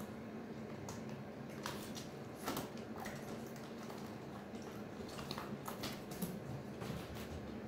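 A mink plunging its head and body into a small glass tank of water to catch goldfish, with irregular splashes and water sloshing, several sharp splashes a second or so apart.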